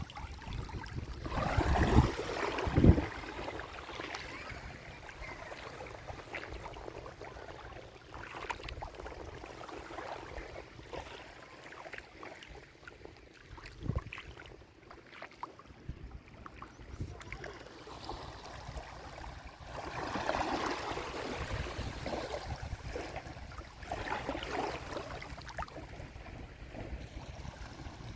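Small sea waves washing onto a beach in repeated surges. There are two low thumps about two and three seconds in.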